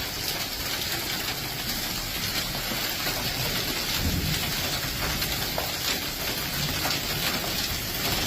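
Heavy rain pouring steadily, with a brief low rumble about halfway through.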